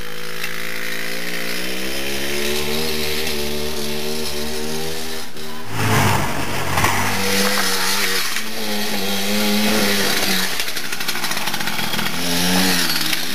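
Suzuki JR50 mini dirt bike's small two-stroke engine running, its note climbing steadily over the first few seconds. About halfway through it breaks off and picks up again at a different pitch.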